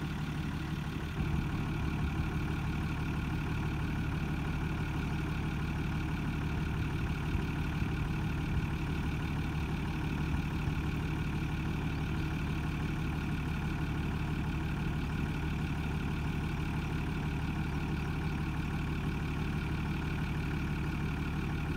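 Diesel engine of a Kato truck-mounted mobile crane running steadily while the crane swings its boom around, with a slight rise in level about a second in.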